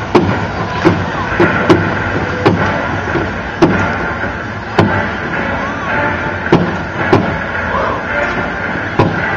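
Marching drums struck in sharp single strokes, spaced unevenly, over the murmur of a crowd.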